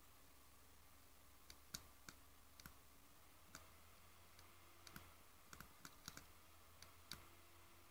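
Faint clicks of a computer mouse, irregular and some in quick pairs, as text on the screen is selected. A low steady hum sits underneath.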